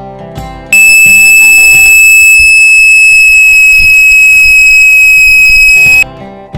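Homemade syringe-and-balloon air horn sounding one long, very loud, steady high-pitched blare for about five seconds, stopping abruptly. Acoustic guitar music plays briefly before and after it.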